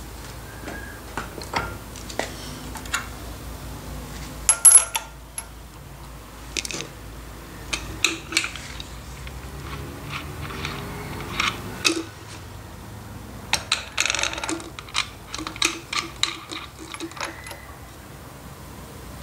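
Small metal parts of a car's rear shock absorber and strut top mount clinking and clicking as they are handled and fitted together by hand. There is a louder clatter about four and a half seconds in and a quick run of clinks near the three-quarter mark.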